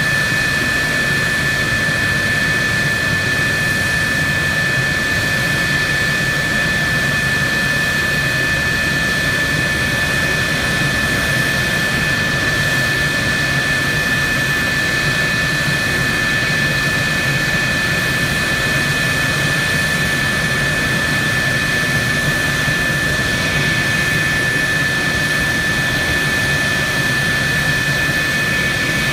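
Jet turbine running steadily, a constant high whine over a rushing noise, with no change in pitch or level.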